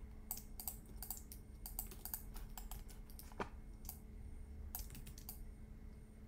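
Typing on a computer keyboard: a run of irregular, light key clicks, faint over a steady low hum.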